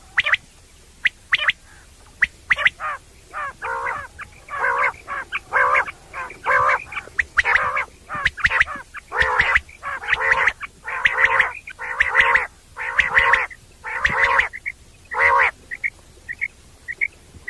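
Common quail calling: a fast series of short, nasal notes, about one to two a second, with a few thin clicks early on and some short faint pips near the end.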